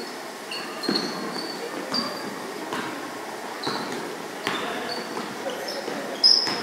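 Basketball being dribbled on a hardwood gym floor, a bounce roughly once a second, with short high sneaker squeaks in between. The sounds echo in a large gym, and the sharpest hit comes near the end.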